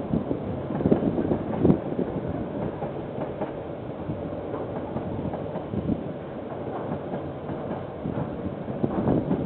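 KiwiRail train's wagons rolling past: a steady rumble of wheels on the track with irregular knocks and clatter, heaviest about a second in and again near the end.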